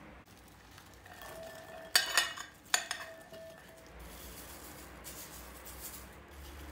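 Metal cutlery clinking against a glass mixing bowl: a few sharp clinks with a short ringing tone about two seconds in. Then a faint patter of salt sprinkled from a spoon onto chopped greens.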